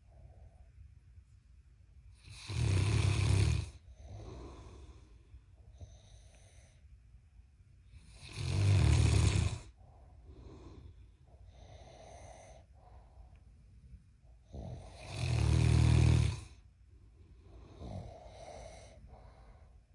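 Loud snoring from a sleeper: three long, heavy snores about six seconds apart, with softer breathing between them.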